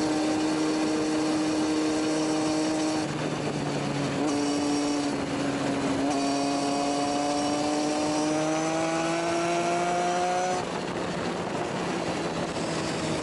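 Sport motorcycle engine at high revs heard from an onboard camera, with wind rushing over the mount. The revs dip about three seconds in, climb slowly from about six seconds in as the bike pulls in gear, then drop about ten seconds in as the throttle closes and the sound gets a little quieter.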